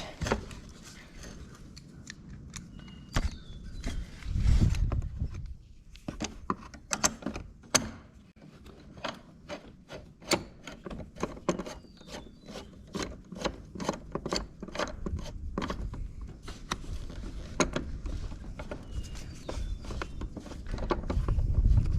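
Socket ratchet clicking in short strokes while bolts are run in by hand, with clinks of metal tools and a couple of dull bumps.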